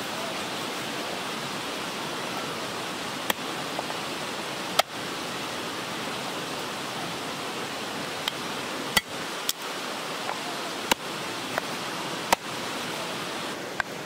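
Meat cleaver chopping pork ribs on a wooden chopping block: about seven sharp knocks at irregular intervals, a second or more apart, over a steady rushing hiss.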